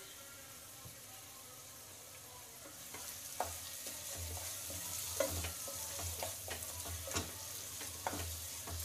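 Chicken gravy sizzling in a nonstick pan. From about three seconds in, a wooden spatula stirs and scrapes through it with light knocks against the pan, mixing in the fresh cream just added.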